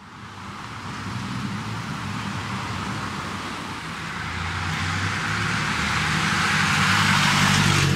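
Road traffic: a car's engine and tyres growing steadily louder as it approaches, loudest near the end as it passes.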